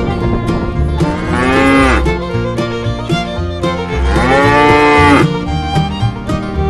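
A cow mooing twice, each call about a second long and rising then falling in pitch, over steady background music.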